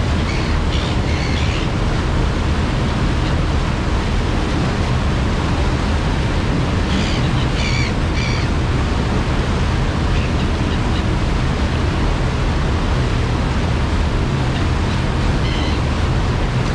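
Ferry under way: a steady low engine hum under the loud rush of the churning wake, with gulls giving short calls a few times, near the start, around the middle and near the end.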